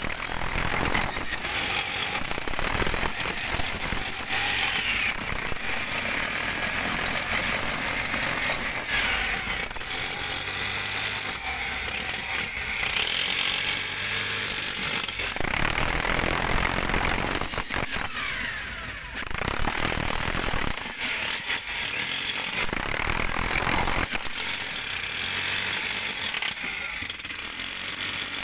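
Corded electric jackhammer hammering into rock, running in long stretches with a few brief pauses.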